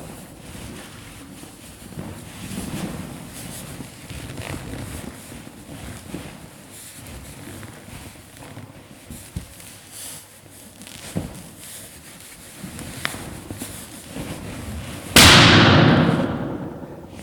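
Large latex balloon being sat and bounced on, rubbing and creaking under the weight, then bursting about 15 seconds in with a single loud bang that rings down over a second or two.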